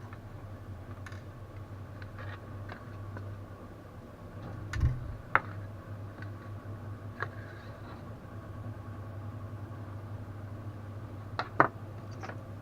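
Scattered light clicks and taps of small tools and parts being handled on a workbench, over a steady low hum. There is a dull knock about five seconds in and a couple of sharper clicks near the end.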